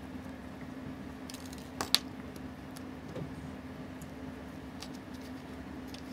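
Small sharp clicks of a Seiko 6138 chronograph movement being handled and lifted out of a steel movement holder: two close together about two seconds in, the second the loudest, and a fainter one a second later, over a steady low hum.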